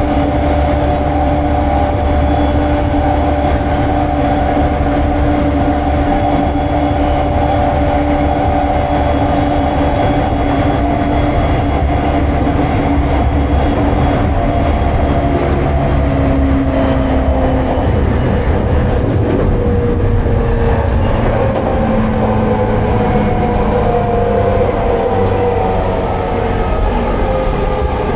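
JR 209-1000 series electric train running, heard from motor car MoHa 209-1001 with its Mitsubishi GTO-VVVF drive: steady rumble of wheels on rail with a held motor whine. About halfway through, the whine tones start to fall in pitch as the train slows.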